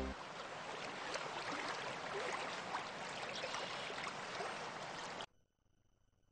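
Running water, like a flowing stream: an even rushing noise that cuts off suddenly about five seconds in.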